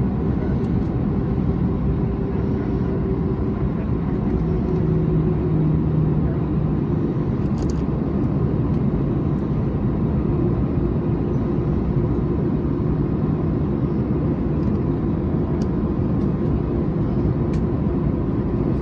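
Steady ground-idle cabin noise aboard an Airbus A321-211 after landing: a constant low hum and rush, with a few faint clicks.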